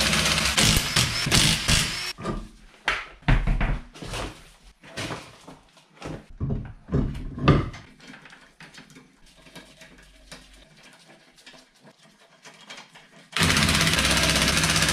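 Cordless impact wrench hammering lug nuts tight on a car wheel for about two seconds. Then a string of short knocks, clicks and brief tool bursts, and quieter hand work on the nuts. The impact wrench starts hammering again about thirteen seconds in.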